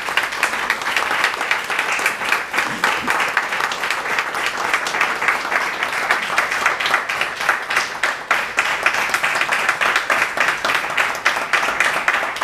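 A small audience applauding: many hands clapping in a steady, dense patter that keeps up the whole time.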